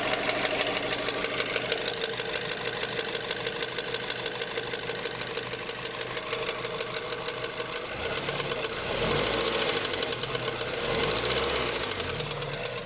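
Mazda 3 (BK) 1.6 engine running with a fast, even ticking or knocking that the owner reports as constant. The engine is revved briefly twice in the last few seconds, and the ticking speeds up with it.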